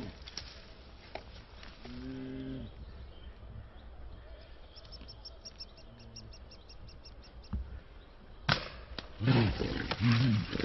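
A brown bear caught in a snare gives low moaning growls in distress, one about two seconds in and a fainter one near six seconds. About eight and a half seconds in there is a single sharp crack, then the bear bawls loudly again and again.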